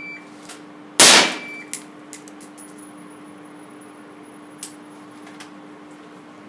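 A shot timer's short beep, then about a second later a single suppressed carbine shot, loud and echoing in the indoor range, followed by a few light metallic clinks of the ejected case on the concrete floor. The suppressed shot was too quiet for the shot timer to register.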